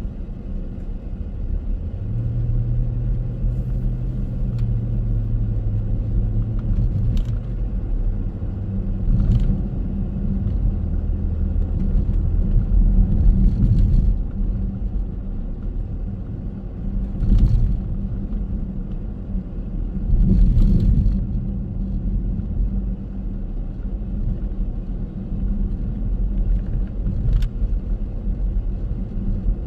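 Car driving on city streets: a steady low rumble of road and engine noise, with a few short knocks along the way.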